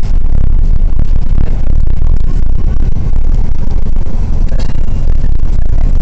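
Bus engine and running gear heard from inside the passenger cabin: a loud, steady low rumble.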